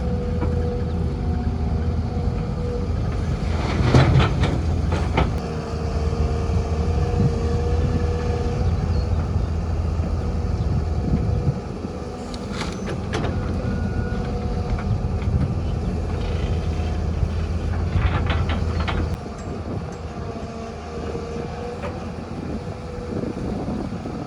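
Heavy earthmoving machinery, an excavator with dirt trucks, running steadily with a deep engine rumble. Metallic clanks and knocks come in short clusters about four seconds in, around twelve seconds, and around eighteen seconds.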